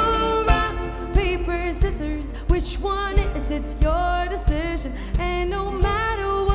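Live band music: a woman singing a melody over the band, with a steady beat.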